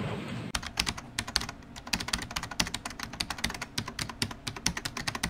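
Computer-keyboard typing sound effect: quick, uneven key clicks, several a second, starting about half a second in.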